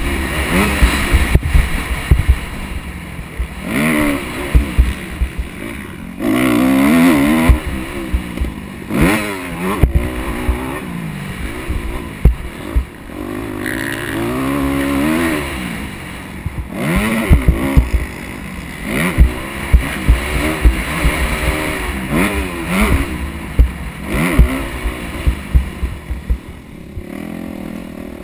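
Motocross dirt bike engine revving up and dropping off again and again as the rider accelerates and rolls off around the track, with many short low thumps mixed in.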